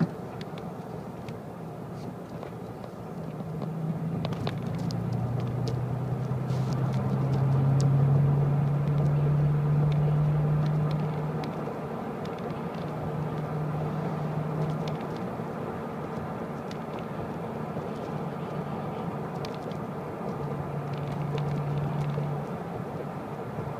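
A car being driven: a steady hum of engine and road noise. The engine note rises about four seconds in, stays up for several seconds, then eases back, with faint scattered clicks.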